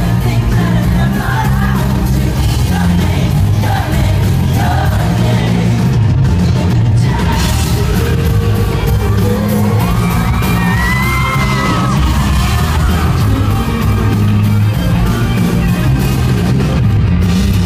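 Live band playing loud with electric guitar, drums and a heavy bass, with singing over it and the crowd yelling and whooping, heard from close in the audience.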